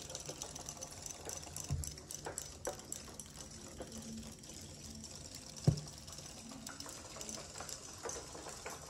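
Robo Fish robotic fish toys running in a tub of water: their small battery motors buzz steadily as the tails wag, with a fine rattle. Two sharp clicks stand out, the louder one a little after halfway.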